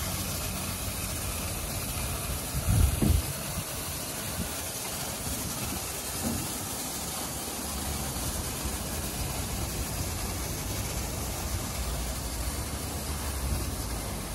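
WashTec EasyWash rollover car wash running: its brushes spin and water sprays against the car with a steady hiss over the low hum of the gantry drive as it travels along its rails. A brief loud thump comes about three seconds in.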